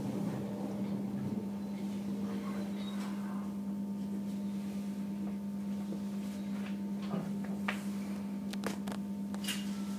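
Steady hum inside a local train car as it rolls slowly to a stop at a station platform, with a few sharp clicks in the last three seconds.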